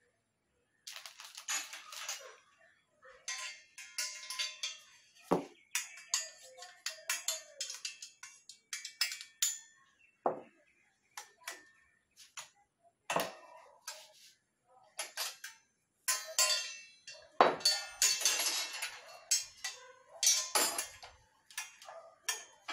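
Metal rods and the metal frame of a kitchen rack clinking, rattling and scraping as they are handled and fitted together, with a few sharper knocks of metal against the tabletop.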